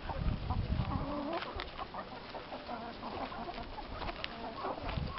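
Flock of chickens clucking, many short calls overlapping, with a few sharp clicks among them.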